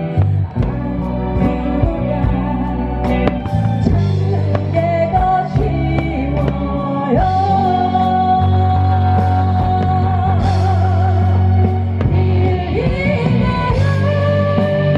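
Live pop-rock band playing: a woman singing lead over keyboard, bass guitar, drums and guitars. About halfway through she holds one long note with vibrato for several seconds, then moves on to another held note.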